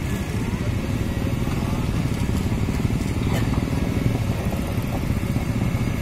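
Kobelco crawler excavator's diesel engine running steadily with a fast low throb while the bucket dumps soil and the boom lifts. A single short knock about three and a half seconds in.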